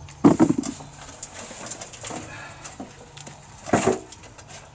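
A pigeon cooing, with a short rustle near the end.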